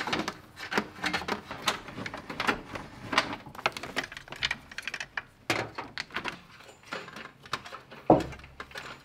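Irregular clicking and rustling of electrical wiring being pulled and fed by hand along plastic engine-bay trim, with a louder knock about eight seconds in.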